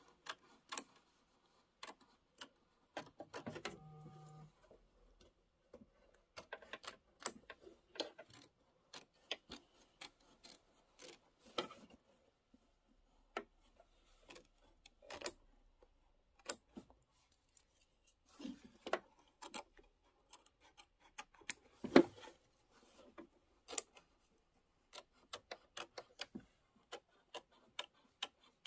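Small embroidery scissors snipping fabric: short, irregular clicks with pauses between cuts, as appliqué fabric is trimmed close to the stitch line. One louder click about three-quarters of the way through.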